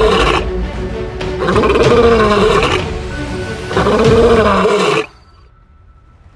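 Male African lion roaring, loud calls repeating about every two seconds, laid over background music; both cut off suddenly about five seconds in.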